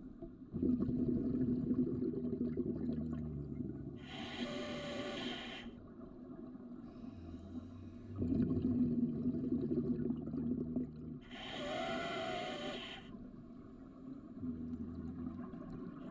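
Scuba regulator breathing heard underwater: slow, regular breath cycles, each a long low bubbling rumble of exhaled air followed by a shorter hiss of inhaled air with a faint whistle. Two full cycles, with a third exhalation starting near the end.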